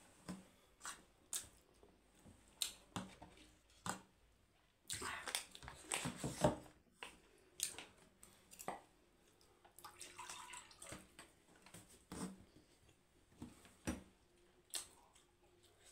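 A person eating spicy instant noodles: short wet mouth clicks and smacks of chewing, with a longer stretch of slurping about five seconds in.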